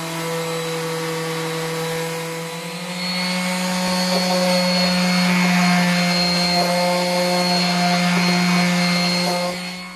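Stanley random orbital sander running on bare wood, likely with 80-grit paper: a steady motor hum with a rasping hiss. It grows louder about three seconds in and stops near the end.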